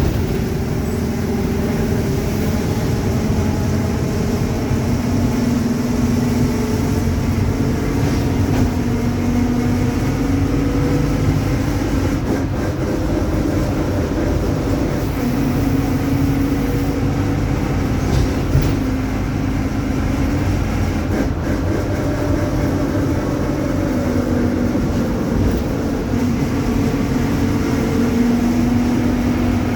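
Mercedes-Benz OF-1721 bus running at speed, with the differential growling: a steady drone that swells and fades and drifts slightly in pitch over the engine and road noise.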